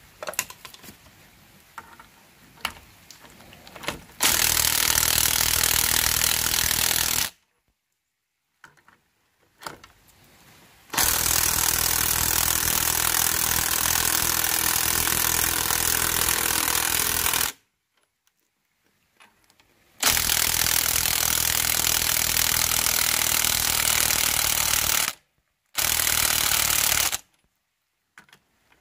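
Cordless impact driver hammering on a coil-spring compressor's threaded rod, winding the compressor down on a car's front strut spring. It runs in four bursts, one of about three seconds, one of about six, one of about five and a short last one, after a few light clicks of handling.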